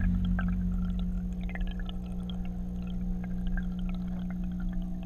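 Underwater sound inside an aquarium: a steady low hum with scattered small ticks and water noise, fading out toward the end.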